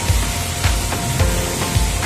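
Background music with a steady beat, about three beats a second, over a noisy hiss.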